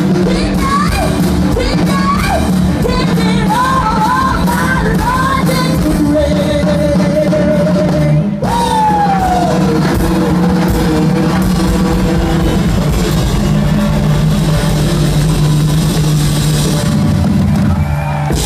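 Live soul-gospel band with a woman singing lead, with saxophone and drums. Short sung phrases give way to a held note and then a downward vocal slide about eight seconds in, and the band holds a long chord through the second half.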